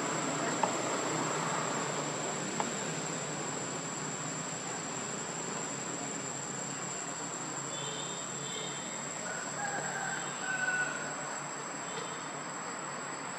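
Forest insects keep up a steady high-pitched drone like crickets, over a background hiss. Two brief clicks come early on, and a few short high chirps come near the end.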